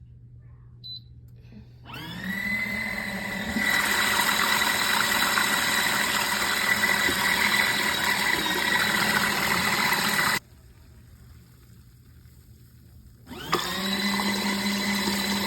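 Small portable washing machine's electric motor starting with a rising whine and running steadily for about eight seconds, then cutting off abruptly. After a few seconds' pause it starts again: the stop-start of its wash cycle as it washes a mop head in water.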